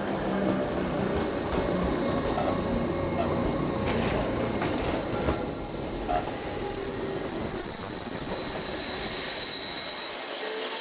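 Electric rack-railway train of the Gornergrat line passing close by at low speed over switches and rack track: a continuous rumble of wheels and drive with a steady high whine, and a few sharp clicks from the wheels about four to six seconds in.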